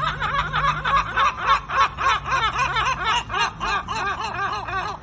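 Two gulls calling together in their long call: a fast, unbroken run of loud yelping notes, about five a second, overlapping.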